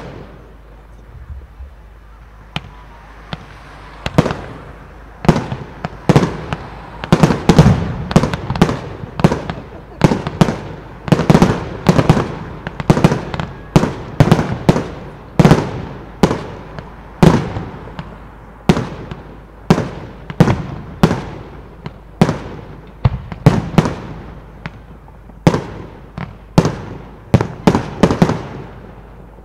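Professional display firework shells bursting in a rapid series of sharp bangs, each with a short echoing tail. The bangs are sparse at first, come one to two a second from a few seconds in, and stop near the end.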